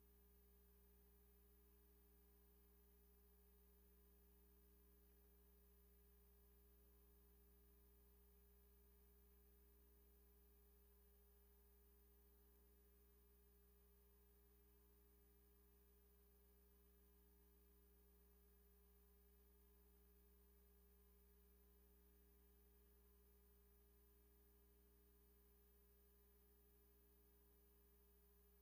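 Near silence: room tone with a faint, steady hum.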